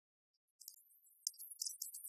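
Hot oil sizzling in a wok as chilli paste fries: a dense, irregular high crackle that starts about half a second in after silence and grows louder.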